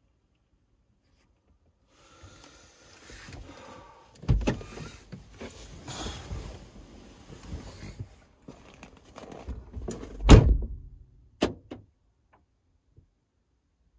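Rustling and knocking handling sounds with a heavy thump about four seconds in, a louder thump about ten seconds in, and a sharp click just after.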